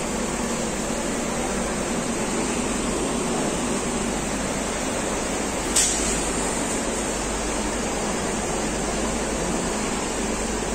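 Steady mechanical noise of a Richpeace computerized single-needle quilting machine running, with a single sharp click about six seconds in.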